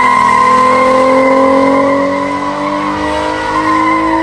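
Ford Mustang V6 doing a burnout: the tyres squeal in one steady high tone while the engine runs at high revs, its pitch climbing slowly.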